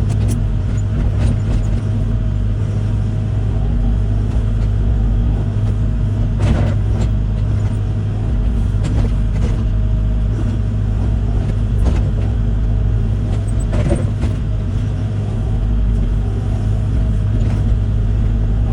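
Land-clearing heavy machine's engine running steadily with a low drone. A few short sharp knocks or cracks come now and then.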